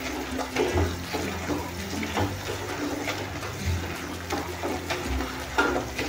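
A pav bhaji masher being pressed repeatedly into soft cooked tomatoes and onions in a non-stick kadhai. It makes wet squelching strokes at an uneven pace, about one or two a second, with light knocks of the masher on the pan.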